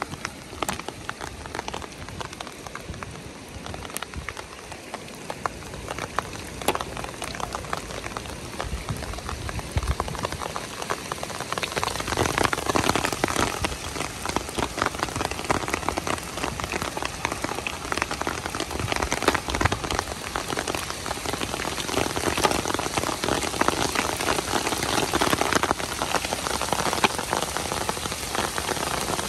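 Heavy rain falling: a dense, steady patter of drops that grows louder about a dozen seconds in.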